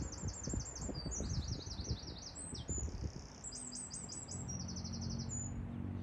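A small songbird singing a long, high-pitched song of rapidly repeated notes, several trilled phrases in a row, over a low rumble with a faint steady hum from about halfway through.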